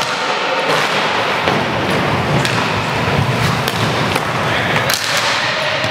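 Inline hockey play on a wooden hall floor: a steady rumble and scrape of skate wheels, broken by repeated sharp clacks of sticks striking the puck and each other.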